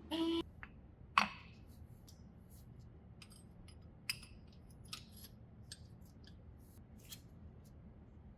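Metal tools and brake parts being handled: one sharp metallic clank about a second in, followed by scattered light clicks and taps.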